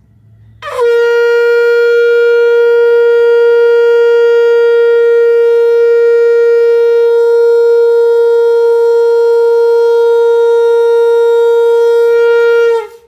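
Conch shell (shankh) blown in one long blast: the note scoops up quickly at the start and is then held on a single pitch for about twelve seconds before cutting off.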